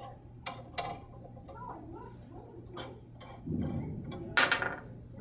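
Small metal clicks and clinks of wing nuts being unscrewed from threaded discs and handled, with a louder clatter of clicks near the end.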